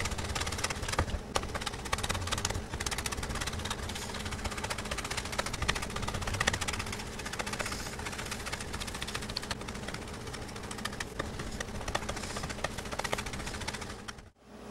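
Chef's knife slicing bell pepper skin into thin julienne strips on a wooden cutting board: a fast, continuous run of light taps of the blade on the board, dropping out briefly just before the end.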